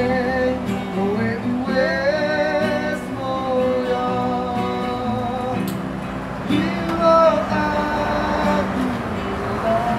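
Singing to an acoustic guitar: a sung melody of held, sliding notes over steady guitar chords.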